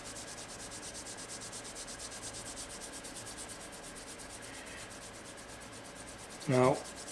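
Fingers being rubbed together briskly in a fast, even rhythm to bring blood into the fingertip before a finger-prick blood test. There is a brief vocal sound near the end.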